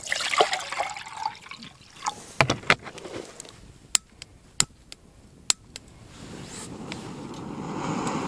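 Water poured into a pot or kettle, its pitch rising as it fills, followed by a few sharp clicks and then a steady rushing hiss that builds from about six seconds in, typical of a camp stove burner lit to heat water for coffee.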